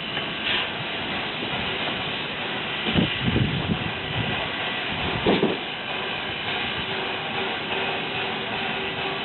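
LNER Peppercorn A1 Pacific steam locomotive 60163 Tornado standing in steam, hissing steadily, with a few brief louder low surges about three seconds in and again just after five seconds.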